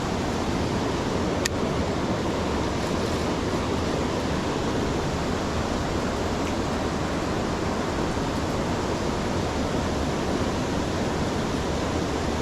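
Creek water rushing steadily, an even noise. A single sharp click sounds about a second and a half in.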